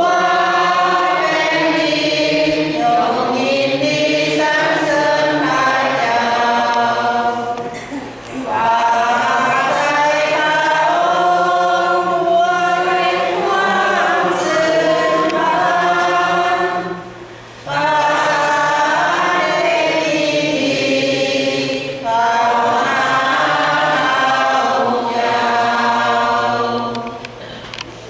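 A choir singing a hymn in long held phrases, with three short breaks between phrases, stopping near the end.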